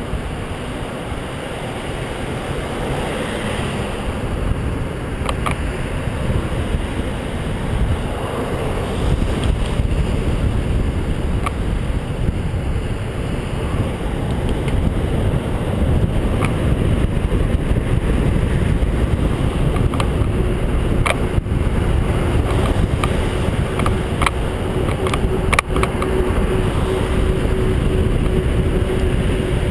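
Wind rushing over the microphone of a bicycle-mounted camera while riding along a road, with traffic noise and a few sharp clicks. A steady hum joins in about two-thirds of the way through.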